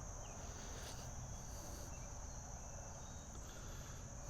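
Insects droning steadily at one high pitch, with a faint low rumble beneath.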